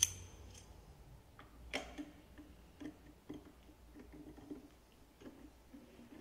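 Small metal clicks of an Allen key being fitted into and turned in a screw on an electric pruning shear's cutting head. A sharp click comes at the start, then lighter irregular ticks.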